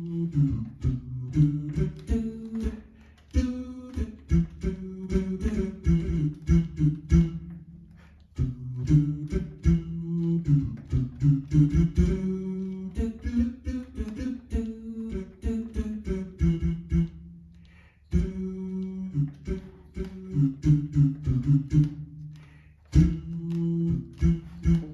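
Roland AE-20 Aerophone digital wind instrument playing a melody on a plucked, guitar-like sound, in a quick run of picked notes broken into phrases by brief pauses.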